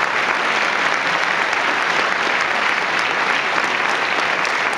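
Large audience applauding steadily: dense, even clapping throughout.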